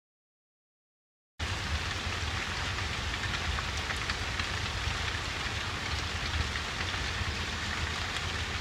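Steady heavy rain, starting abruptly about a second and a half in after dead silence.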